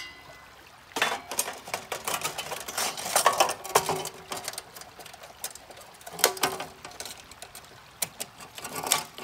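Metal riffle tray clattering against an aluminium Keene sluice box as it is set back in place: rapid irregular metal-on-metal clicks and clanks, with a short metallic ring twice.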